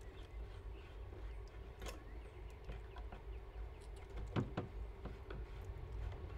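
Small metallic clicks and two knocks just after four seconds in, from hand-work on an automatic greenhouse vent opener mounted on a plywood wall. Faint bird chirps and a low steady rumble run underneath.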